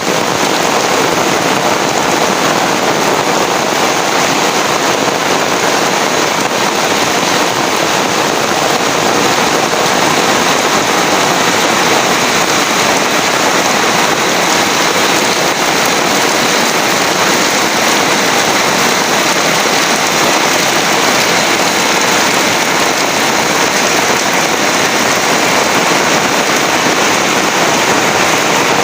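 Heavy rain falling steadily: a dense, even rush of downpour with no thunder.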